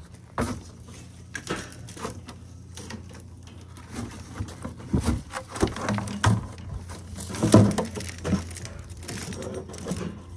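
Plastic lattice panel and plastic tub being handled and shifted, with irregular clacks, knocks and scrapes, the loudest knock about seven and a half seconds in, over a steady low hum.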